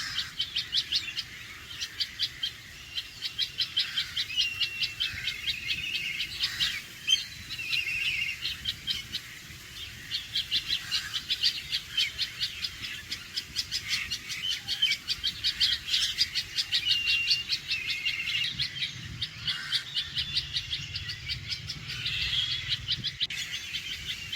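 Red-vented bulbul alarm calling: rapid runs of sharp, clipped notes, about five a second, with a few short whistled notes between them and a brief lull near the middle.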